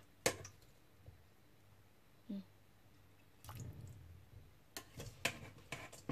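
Chicken feet being dropped with tongs into a glass bowl of fish-sauce dressing: faint wet squishes and small splashes, with a few light clicks, most of them near the end.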